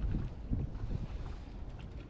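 Wind buffeting the microphone in gusts, with a few faint ticks near the end.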